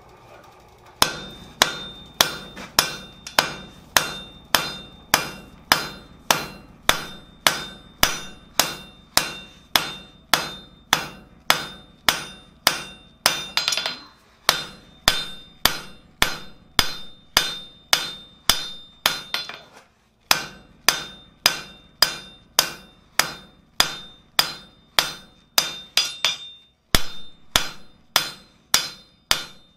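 Blacksmith's hand hammer striking a hot steel bar on an anvil, setting down and drawing out the stock for tong jaws. About two blows a second, each followed by a short ringing note, with brief pauses about halfway and two-thirds through.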